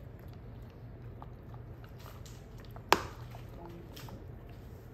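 A wolfdog gnawing a hard, stick-shaped dog treat: faint clicks of teeth on it, and one sharp crack about three seconds in.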